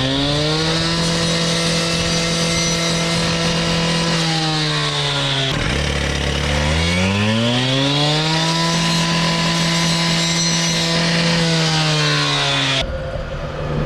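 Two-stroke Partner cut-off saw run up to full speed and held there, cutting through wires. Its engine drops to a low idle about five and a half seconds in, revs back up and holds high again, then falls away near the end.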